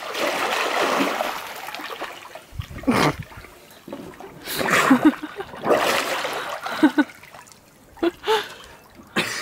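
Water splashing as a swimmer does front crawl in a swim spa. A long wash as he pushes off, then separate splashes from his arm strokes about once a second.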